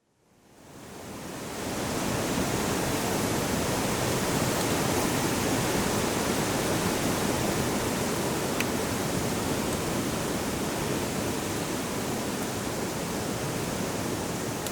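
Mountain hillside ambience: an even, steady rushing noise that fades in over the first two seconds.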